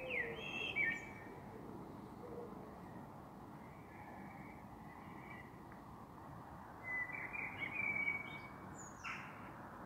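Birds chirping in short high phrases near the start, about four seconds in, and in a longer run in the second half, over a steady background hiss.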